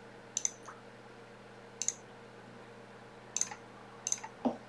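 Computer mouse clicking four times, each click a quick press-and-release pair, spaced about a second and a half apart, with a brief low sound near the end.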